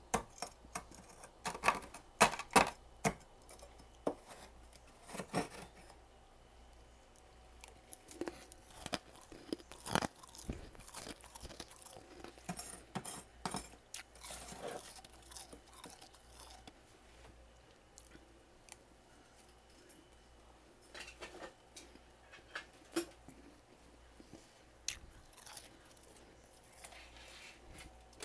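Freezer frost being crunched and chewed in the mouth, close up: a quick run of sharp, loud crunches in the first few seconds, then softer, scattered crunching and chewing.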